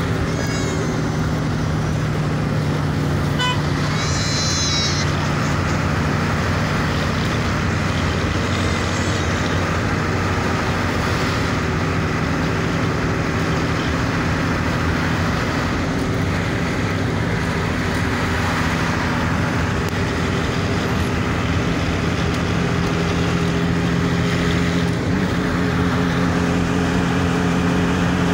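Bus engine running steadily under way with road noise, heard from inside the cabin; the engine note rises slightly near the end. Two brief high-pitched horn toots sound about a second and about four seconds in.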